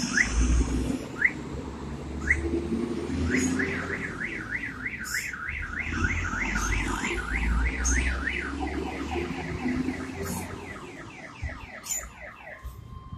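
A car alarm siren going through its cycle. First a few single rising chirps, then a fast up-and-down warble about three times a second, then quicker falling sweeps that stop near the end. A low rumble runs underneath.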